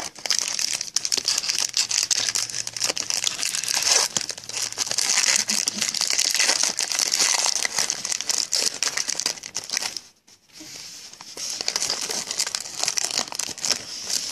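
Foil and plastic wrapping of a trading-card pack crinkling and tearing as it is opened by hand. There is a short pause about ten seconds in before the crinkling picks up again.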